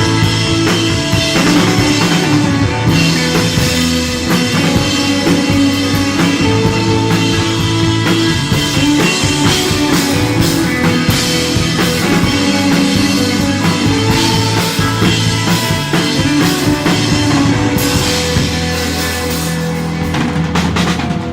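Instrumental psychedelic desert rock played live by a guitar, bass and drums trio, with the drum kit prominent under sustained electric guitar and bass notes.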